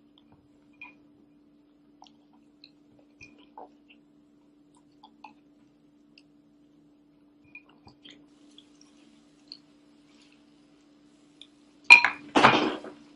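Scattered faint clicks and taps over a low steady hum, then a loud clatter of two quick knocks near the end.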